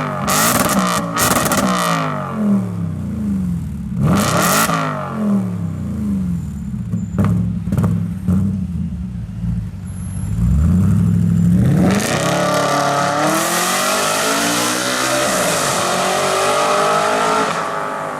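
Audi RS5 with a Capristo aftermarket exhaust and a Stage 1 tune, revved repeatedly in quick throttle blips. Loud pops and crackles on the overrun come about seven to eight seconds in. From about twelve seconds in, the engine is held at higher revs for several seconds with a rushing noise.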